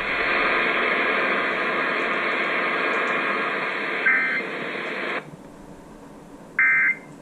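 Steady hiss of static on an FM radio broadcast of an Emergency Alert System AMBER Alert, cutting off suddenly about five seconds in. A short screech of the EAS digital data tones, the end-of-message code, sounds faintly about four seconds in and loudly near the end.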